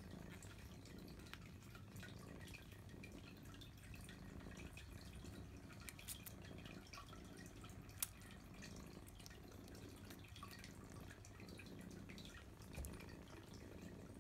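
Faint, wet clicks and smacks of Siberian kittens suckling at their mother's teats, with one sharper click about eight seconds in.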